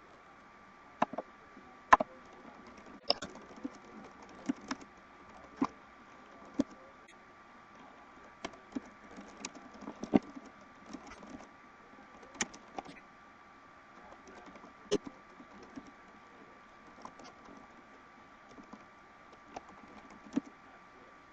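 Irregular clicks and key taps, about twenty scattered unevenly, some much louder than others, over a faint steady hum.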